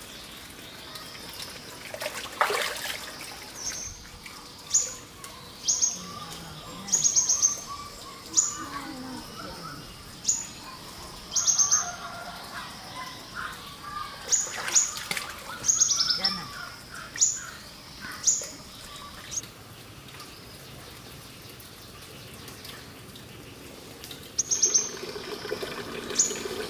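Birds chirping in short, high calls that repeat about once a second, breaking off for a few seconds near the end, over a steady trickle of water from a bamboo pipe. A short splash comes about two seconds in.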